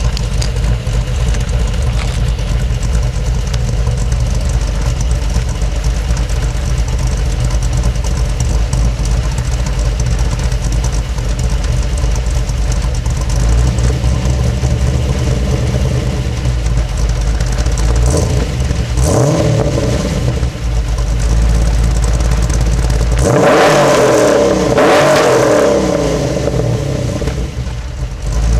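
Cammed Pontiac G8 GT 6.0-litre V8 with headers and Pipes Violator mufflers idling, heard from behind the car. It is blipped briefly a couple of times about eighteen to twenty seconds in, then revved harder twice near the end, each rev rising and falling back to idle.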